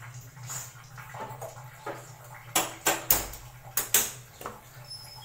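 Aluminium pressure cooker lid being pressed on and locked shut, with quiet handling in the first half, then about five sharp metal clacks of lid, handles and pot knocking together.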